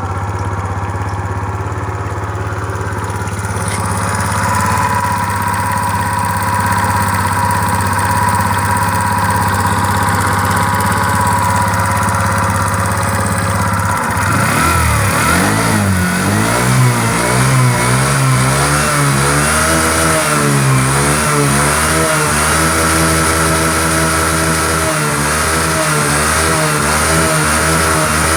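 Suzuki Let's 5 scooter's small single-cylinder engine idling steadily, then from about halfway revved up and down repeatedly, its pitch rising and falling. The owner says the engine makes an abnormal noise.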